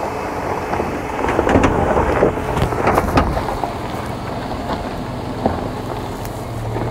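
Falken Wildpeak all-terrain tyres of a 2022 Toyota Tundra TRD Pro crunching and crackling over dirt and loose stones as the pickup creeps down a steep slope, with a low steady engine hum underneath in the later seconds.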